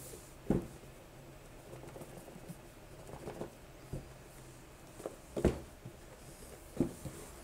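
A cardboard box being worked open by hand: faint rustling with four dull knocks and bumps, the loudest about five and a half seconds in.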